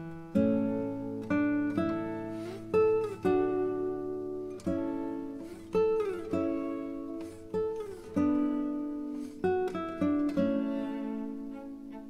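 Background music of plucked acoustic guitar: single notes and chords struck every second or so, each ringing and fading, with a few sliding notes.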